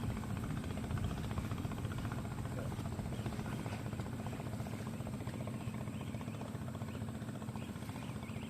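Small boat engine running steadily with an even, fast low throb.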